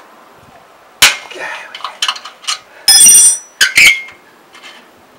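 An Allen key clinking and knocking against a bolt and the chrome exhaust pipe of a Yamaha XVS650: several sharp metallic knocks, the loudest about three seconds in, ringing briefly.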